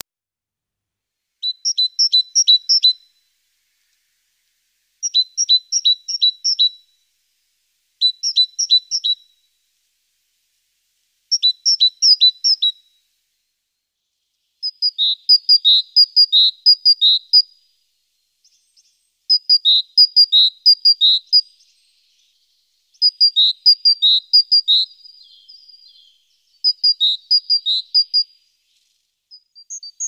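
Great tit singing: short phrases of a quickly repeated two-note motif, one about every three and a half seconds, switching to a different two-note pattern about halfway through.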